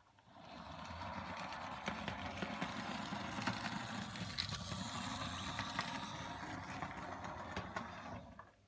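Electric model railway locomotive running past at speed, its motor whirring and its wheels clicking on the track. It rises about half a second in and fades away near the end.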